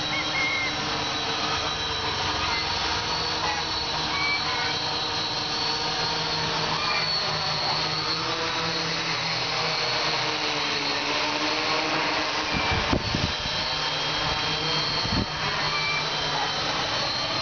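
Y6 hexacopter's six Sunnysky 2814 brushless motors spinning 12x6 carbon propellers, a steady buzzing whine as it hovers in GPS position hold. Its several tones drift up and down a little in pitch. There are a few brief low thumps about three-quarters of the way through.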